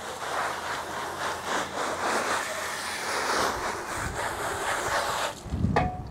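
Water spraying from a garden hose nozzle onto a motorcycle and the concrete beneath it, a steady hiss that cuts off about five seconds in. A few low thumps follow near the end.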